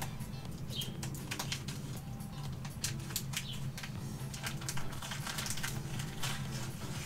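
Scissors snipping through the edge of a vacuum-sealed plastic bag: an irregular run of short, sharp snips with plastic crinkling.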